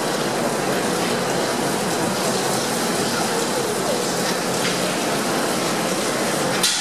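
Steady rain-like rushing and spattering of water draining off the RNLI Tamar-class lifeboat's hull onto the slipway, with one sharp knock near the end.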